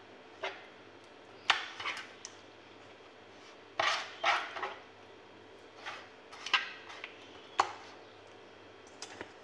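Marinated fish steaks being turned and pressed by hand in a shallow pan: about ten scattered short knocks and clatters of fish and fingers against the pan, some in quick pairs.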